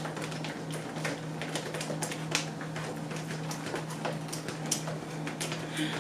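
A runny slime mixture being stirred in a bowl, the stirring utensil clicking and tapping irregularly against the bowl several times a second, over a steady low hum.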